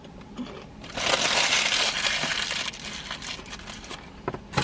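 A food wrapper crinkling loudly for about two seconds, then softer rustles and a sharp click near the end.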